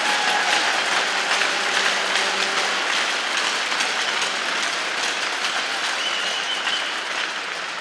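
Arena crowd applauding, a dense steady clapping that eases slightly near the end.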